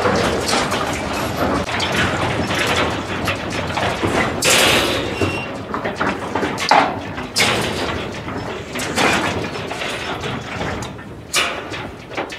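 Irregular knocks, bangs and rattles from the steel crates of a loaded cattle road train, with cattle shifting inside, and a few short bursts of hiss.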